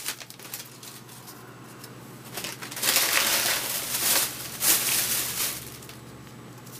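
Plastic wrapper of a baseball card pack crinkling as it is handled and opened, in several noisy bursts from about three seconds in to about five and a half seconds, over a faint steady hum.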